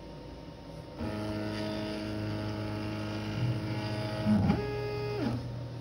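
X-Carve CNC router's Z-axis stepper motor whining steadily as it drives the V-bit down onto the touch-probe plate during Z zeroing. Partway through there is a brief louder blip as the bit touches the probe, then a higher whine as the axis backs off, falling in pitch and stopping near the end.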